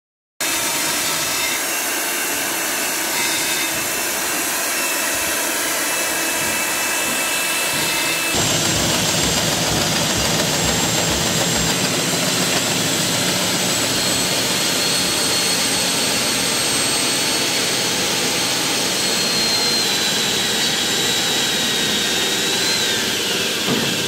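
Electric diamond core drill on a rig stand running, its water-cooled bit grinding into a concrete slab with a steady motor whine. It starts suddenly about half a second in, and near the end one whine tone drops in pitch.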